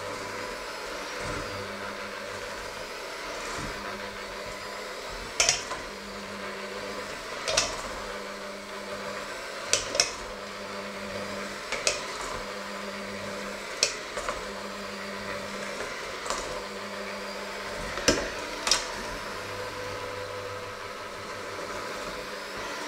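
Handheld electric mixer running with a steady motor hum, its beaters whisking egg mixture in a stainless steel bowl. Sharp metallic clinks every couple of seconds through the middle stretch, the beaters knocking against the bowl.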